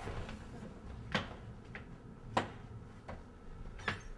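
About four light, sharp clicks or taps, spaced roughly a second apart, in a small room with faint room noise between them.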